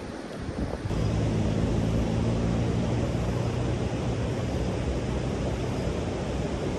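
A motor vehicle's engine running with a steady low hum that comes in about a second in and eases off toward the end, over a noisy background of wind or road noise.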